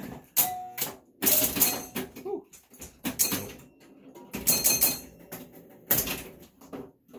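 Super Flite electromechanical pinball machine advancing its score at the end of a ball: relays and score reels clacking, with brief ringing tones, in five separate bursts.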